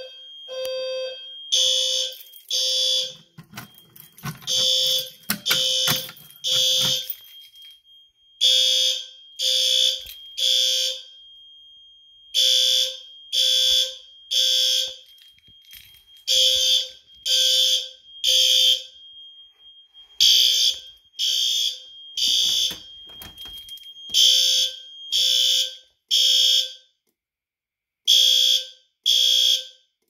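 Fire alarm horns sounding the temporal-3 evacuation pattern: three loud pulses, a pause, then three more, over and over, with a thin steady high tone running beneath. The system is in alarm from a manual pull station.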